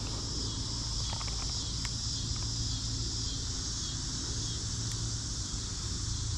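Night-time outdoor ambience: a steady high chirring of insects with a low steady hum beneath it and a few faint clicks.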